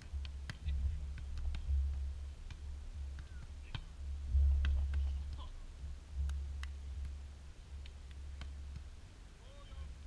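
Wind buffeting the microphone in uneven gusts, with scattered short sharp clicks and faint distant voices.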